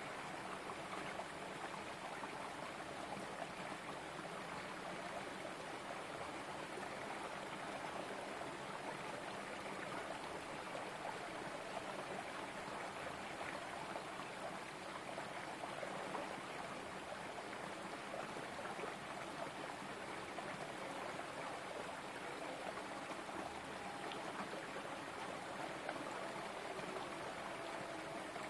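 Small rocky stream running steadily, water pouring and splashing through a narrow gap between boulders.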